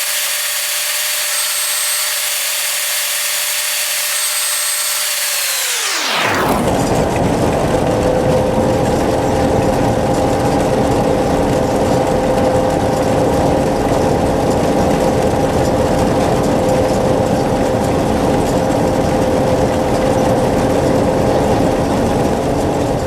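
A combine harvester running steadily: a constant machine drone with a steady hum. It sounds thin and tinny for about the first six seconds, then opens out to its full, deeper sound.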